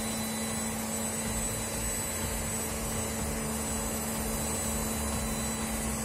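Samsung Eco Bubble washing machine running on test after repair of its control board for a 3E motor fault: a steady whirring noise with a steady low hum, as of the drum motor turning.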